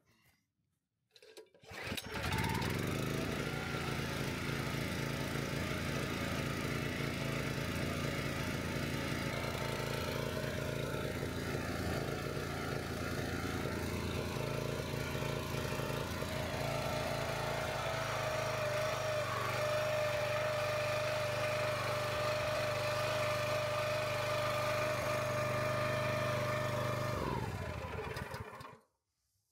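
Kohler Command Pro 9.5 hp single-cylinder engine on a log splitter starting about two seconds in and running steadily, a higher steady whine joining about halfway through, then shut off near the end, its pitch falling as it winds down. It runs smoothly with its carburetor freshly cleaned of the dirt that had clogged it and made it run terribly.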